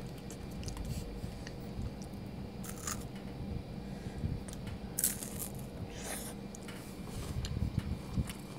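Faint chewing of a mouthful of Kinder Happy Hippo cocoa wafer biscuit, with a few brief soft crunches.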